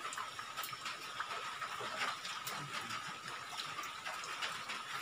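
Steady background hiss with a faint high steady tone, and scattered light clicks and taps of fingers handling a smartphone fitted with a clip-on zoom lens.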